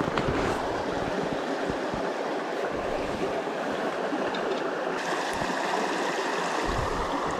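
Running water of a small forest creek, a steady rushing hiss, with a few faint low knocks.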